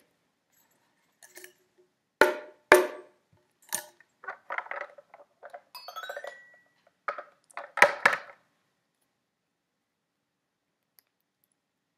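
Toy xylophone bars tapped with a wooden ball-tipped drumstick: about a dozen uneven single notes that stop about eight and a half seconds in.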